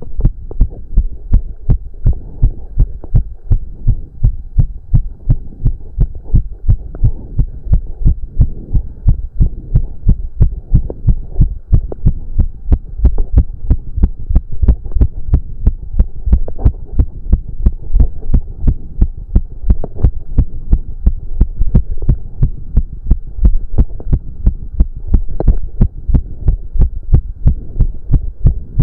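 A man's heart beating fast and regularly, the pulse raised by a cardio workout: a steady run of deep, evenly spaced thumps, about two to three a second.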